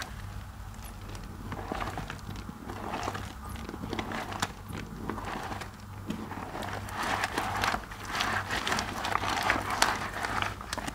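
Wet, mushy soap paste squeezed and kneaded by hands in rubber gloves: squelching with many small crackles of popping foam, busier and louder in the last few seconds.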